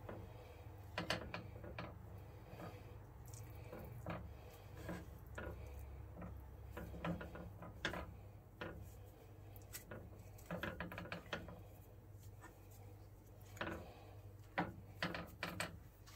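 Hands coating a whole fish in flour in a glass baking dish: faint rubbing and patting in the flour, with scattered light taps and clicks as the fish and fingers knock against the glass, over a low steady hum.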